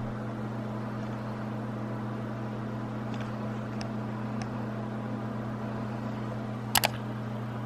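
Steady low mechanical hum, with a few faint ticks and two sharp clicks close together near the end.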